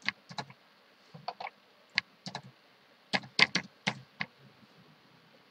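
Typing on a computer keyboard: about a dozen separate keystrokes in short, uneven runs, entering a short word.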